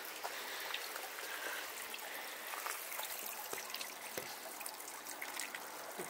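Water trickling steadily from a bamboo spout into a stone shrine purification basin (temizuya), with small scattered drips and splashes.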